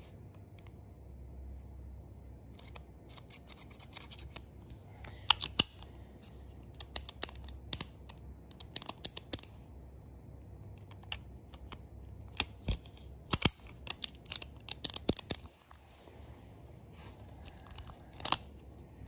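Sharp metallic clicks of a Ruger LCR .38 Special revolver's cylinder and trigger being worked by hand while the trigger is locked up. The clicks come in irregular clusters, mostly between about three and fifteen seconds in, with one louder click near the end.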